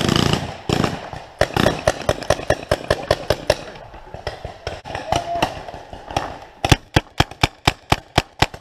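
Paintball markers firing in rapid strings of sharp pops, about five or six shots a second. One run comes in the first few seconds, and a louder run comes near the end.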